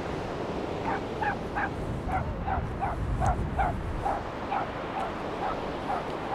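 A dog yapping: a quick series of short, high yips, about three a second, over steady wind and surf noise.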